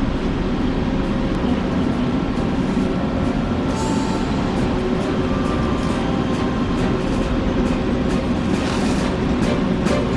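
Steady mechanical noise with scattered clicks and knocks, which come more often near the end.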